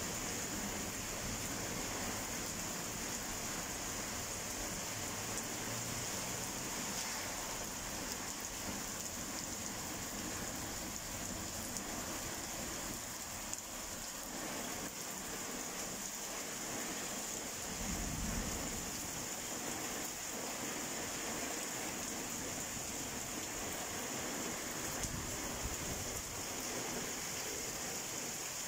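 Rain falling steadily and splashing onto wet pavement, an even hiss throughout. A brief low rumble comes about two-thirds of the way through.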